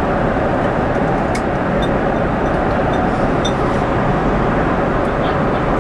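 Steady cabin noise of a Boeing 777-300 airliner in flight: a constant rush of engine and airflow noise. A few faint clicks and a brief paper rustle come about three seconds in as a menu page is turned.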